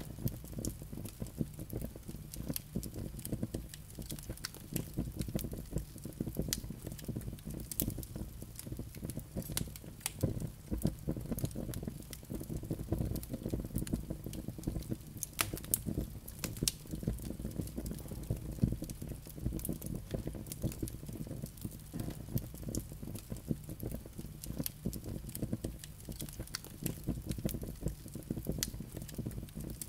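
Wood fire burning in a fireplace: a steady low rumble of flames with frequent, irregular small crackles and pops from the burning logs.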